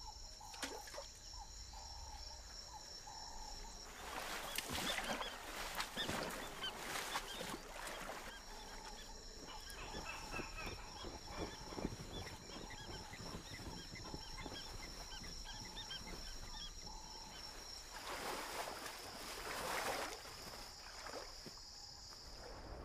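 Marsh wildlife ambience: a steady, high, pulsing chirr runs under scattered short animal calls. Two longer swells of noise, like water splashing, come about four seconds in and again near the end.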